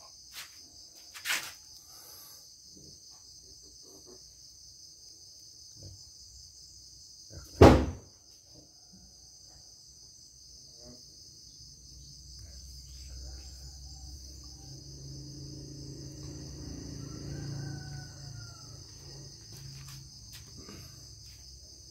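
Steady high-pitched chirring in the background, with a single loud knock about eight seconds in and a smaller click early on. A low hum swells and fades over the second half.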